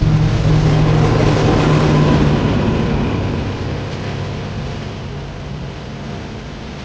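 Diesel-hauled train passing: a loud, steady low engine drone over a wash of running noise, which starts abruptly and fades gradually after about two seconds as the train moves away.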